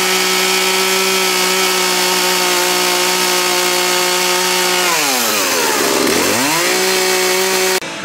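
Chainsaw held at high revs while its bar carves into a wooden board, one steady engine note. About five seconds in the throttle is let off and the engine drops toward idle, then it is revved straight back up to the same pitch before the sound cuts off abruptly near the end.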